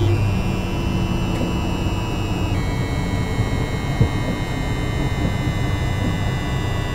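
Class 333 train's Siemens IGBT VVVF traction inverter, picked up electromagnetically by an induction coil together with the natural sound: a cluster of high electronic tones over a steady tone near 1 kHz and a low hum. About two and a half seconds in the tones jump to a new set, a change of the inverter's modulation, then drift slowly lower in pitch.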